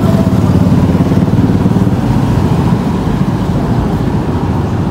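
Motorcycle engines running close by in street traffic: a steady, low pulsing sound that eases slightly in the second half.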